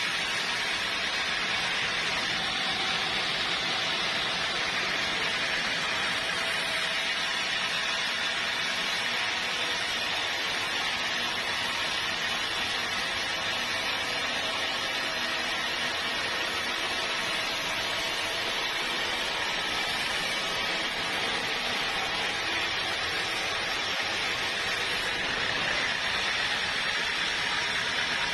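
Steady machine noise with a strong hiss, unchanging in level throughout.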